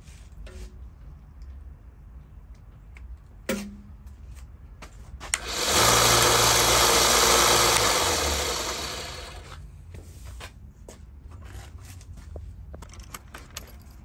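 A click, then a Harbor Freight 1x30 belt sander's motor switched on with its newly fitted rocker switch. It runs the belt steadily for a few seconds, then winds down after it is switched off. The replacement switch works.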